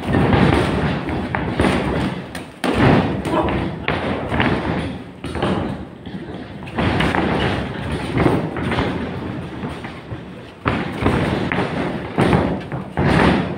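Boxing gloves landing punches on headgear and bodies in sparring: a run of irregular thuds, some in quick combinations.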